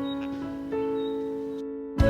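Background music played on a keyboard, slow sustained notes with a new chord coming in a little over a third of the way in. The music cuts out briefly just before the end.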